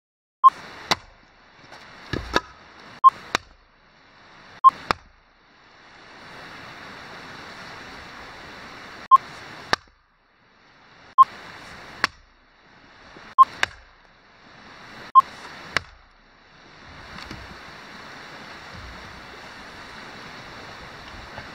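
Splitting axe striking rounds of firewood on a chopping block: sharp cracks, some in quick pairs, with pauses of several seconds between bouts. A river's steady rush runs beneath.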